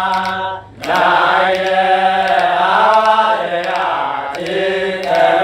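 Ethiopian Orthodox hymn chanted in Ge'ez, sung in long drawn-out notes that bend up and down, with a short break for breath a little under a second in.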